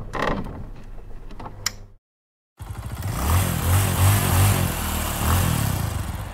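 Small motorcycle engine running and being revved, a throbbing low pulse under a loud mechanical noise for about four seconds after a sudden start, then cut off abruptly.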